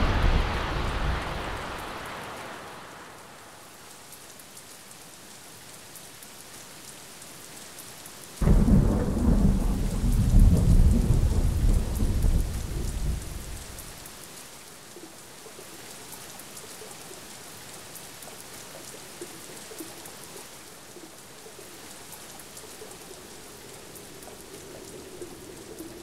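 Thunder over steady rain: a rumble of thunder dies away in the first couple of seconds, leaving the hiss of rain, then a second peal breaks suddenly about eight seconds in and rumbles for about five seconds before fading back under the rain.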